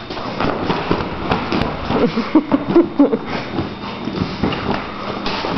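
A dog mouthing and batting an inflatable vinyl beach ball: irregular plastic thumps, pops and rubbing, with its claws scraping and clicking on a concrete floor. A cluster of short squeaks comes in the middle.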